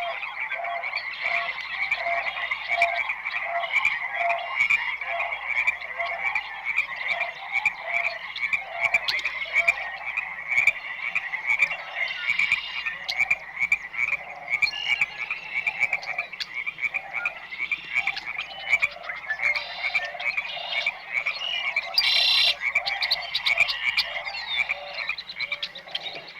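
A dense chorus of frogs croaking, with many overlapping short calls repeating continuously and higher chirps above them. A brief harsh buzzing burst comes about 22 seconds in.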